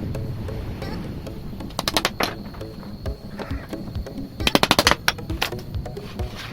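Background music with two quick runs of sharp clicking taps, about two seconds in and again near the middle, the second run faster and the loudest.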